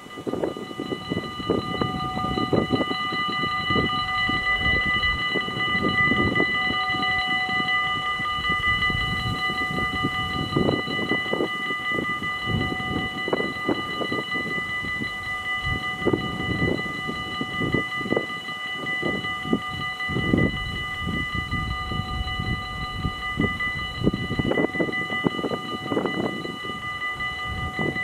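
Dutch level-crossing bell ringing steadily, starting just after the beginning, as the crossing closes for an approaching train. Wind buffets the microphone in uneven gusts underneath.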